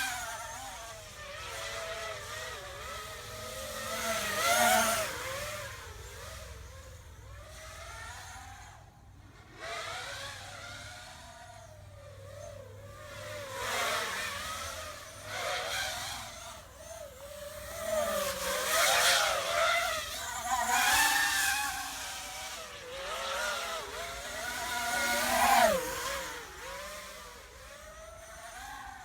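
Brushless motors and propellers of an FPV racing quadcopter (Vortex 250 on Xnova 2204 2300 KV motors) whining in flight, the pitch rising and falling constantly with the throttle. There are several louder surges, and near the end a steep downward sweep as the throttle is cut.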